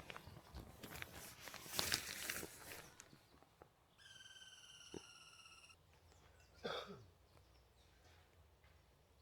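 Faint clattering and handling noises, then a single long whistled note, likely from a bird, lasting nearly two seconds and falling slightly in pitch.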